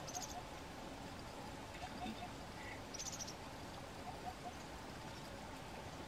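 Faint outdoor ambience with scattered soft bird chirps and two short, rapid buzzy trills, one at the start and one about three seconds in.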